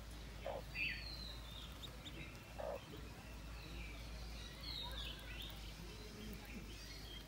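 Ducklings peeping: faint, high, short calls that slide downward, scattered throughout, with two short low clucks from the hen about half a second and nearly three seconds in.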